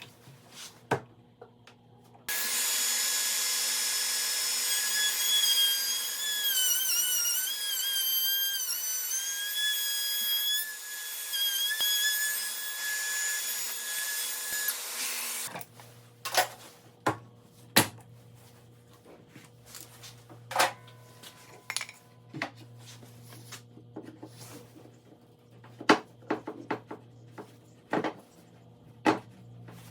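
Wood router with a round-over bit running at high speed: a steady high whine that sags and wavers in pitch as the bit cuts into the wood, stopping after about 13 seconds. Scattered knocks and taps of wood follow.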